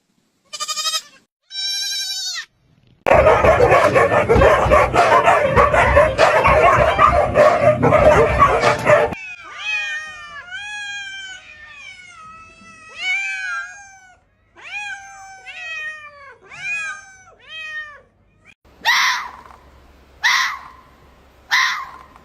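A run of different animal calls, one recording after another. First come short pitched calls, then a loud, dense, noisy stretch of calling. Next is a long string of short calls that fall in pitch, and near the end four harsh calls about a second and a half apart.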